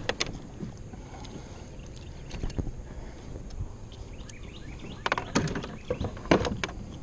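Handling knocks and clatter against a plastic kayak as a landed bass is held up: a few sharp knocks scattered through, with a cluster of louder ones near the end, over a steady low rumble.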